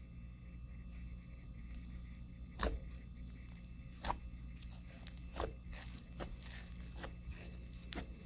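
Hands stretching and squishing a fluffy cloud cream slime, giving a series of sharp tearing pops about once a second.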